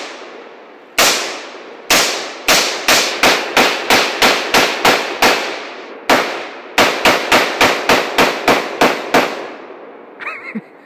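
AR-15 rifle firing semi-automatic: two single shots, then a rapid string of about a dozen shots at four to five a second, a brief pause, and a second string of about a dozen more. Each shot trails off in echo.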